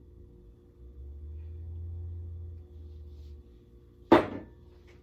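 A low hum for a couple of seconds, then one sharp clank of kitchenware set down hard on a counter about four seconds in.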